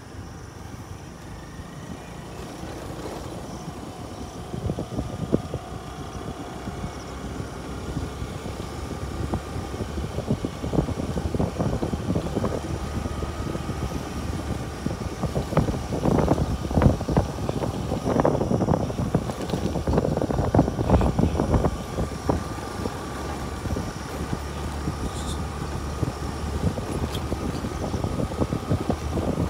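A motor vehicle driving over rough, unpaved ground: a steady engine rumble with many knocks and rattles from bumps, busiest in the middle stretch.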